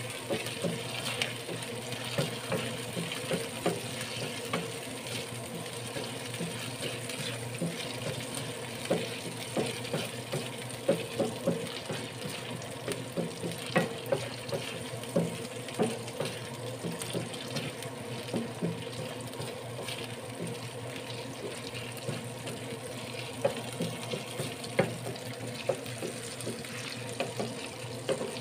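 Field snails sizzling in hot oil in a nonstick frying pan as they are sautéed, with frequent irregular pops and spatters and the wooden spatula knocking as they are stirred. A kitchen range hood fan hums steadily underneath.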